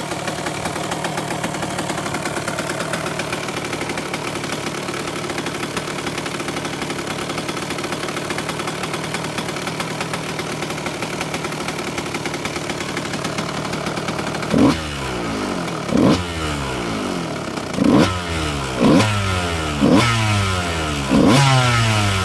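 2006 Kawasaki KX 125's single-cylinder two-stroke engine idling steadily, then, about two-thirds of the way through, revved sharply six times in quick succession, each rev climbing fast and dropping straight back to idle.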